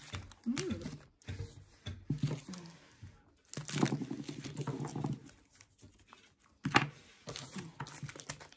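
Eating sounds from a granola bar: chewing, small crunches and wrapper crinkling in uneven clicks. A short low vocal sound comes in the middle, and a sharp click near the end.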